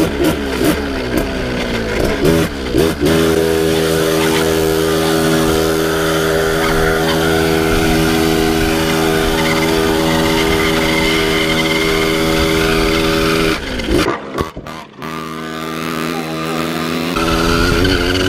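Two-stroke motocross bike engine, heard on the bike. It revs up and down, then holds one steady pitch for about ten seconds. Around fourteen seconds in it briefly cuts out, then climbs again and revs unevenly.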